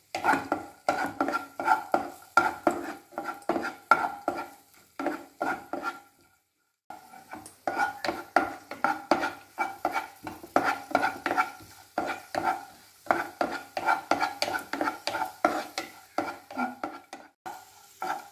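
Wooden spatula stirring cashews and raisins frying in ghee in a nonstick pan: rhythmic scraping strokes about twice a second over a light sizzle, stopping briefly about six seconds in.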